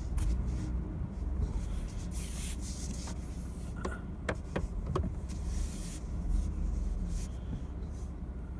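A vehicle moving slowly over rough ground, its engine a steady low rumble, with a few sharp knocks and rattles about four to five seconds in.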